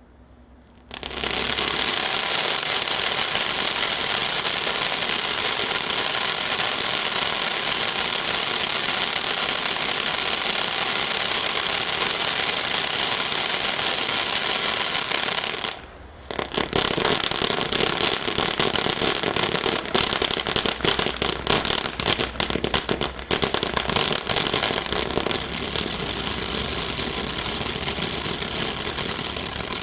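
A firework, the Miracle M302, going off continuously. There is a dense, steady rush of rapid reports for about 15 seconds, a brief break, then a fast run of sharp crackling cracks.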